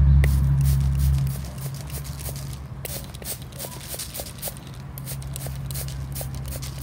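Hand trigger spray bottle squeezed again and again, a quick run of short spray squirts several a second. A loud low hum at the start fades away about a second in.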